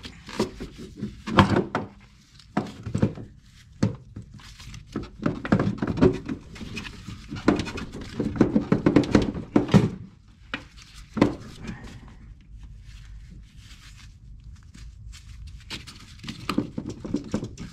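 Irregular clunks and knocks of a snowmobile's hex drive shaft being worked through the drive sprockets and rubber track. The sounds come in busy clusters about a second in and again in the middle, with a single sharp knock after that and quieter stretches between.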